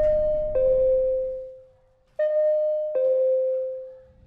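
Two-note ding-dong chime, a higher note followed by a lower one that rings out and fades, sounded twice about two seconds apart.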